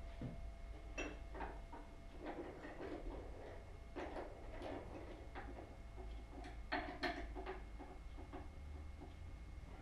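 Scattered light clicks and knocks of metal tooling being handled at a milling machine's angle-head chuck as the drill bit is changed, over a faint steady hum.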